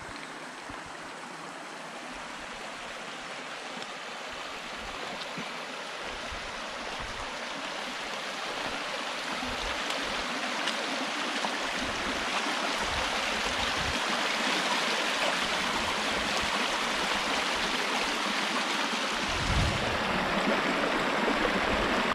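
Shallow river water rushing over a gravel and rock riffle along a bank: a steady, even rush that grows gradually louder.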